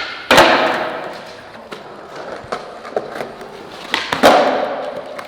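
Skateboard hitting the ground twice, just after the start and again about four seconds in, each impact followed by a fading rush of the wheels rolling on smooth ground. A few lighter clacks come between the two.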